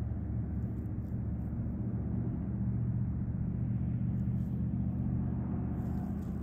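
A car engine idling steadily, a low hum whose pitch does not change.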